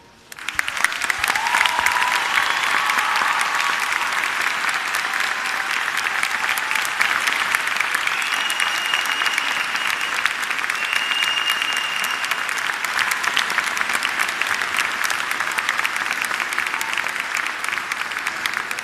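Audience applauding at length, the clapping starting abruptly as the dance music ends and easing off near the end, with a few brief high whistles over it.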